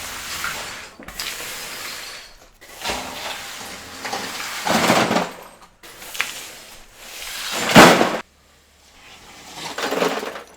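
Demolition rubble and debris scraping and clattering as it is cleared up, in several separate noisy swells; the loudest, near the end, is cut off abruptly.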